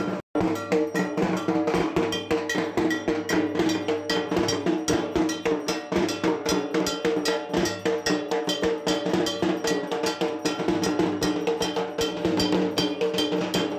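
Fast, even metallic percussion: a bell-metal kansor gong struck about six times a second over drums, in the dhak drumming of Durga Puja. The sound drops out for a moment just after it starts.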